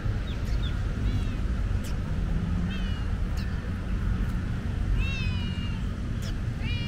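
Tortoiseshell cat meowing several times in short calls that dip in pitch, the longest and loudest about five seconds in. A few faint clicks and a steady low rumble run underneath.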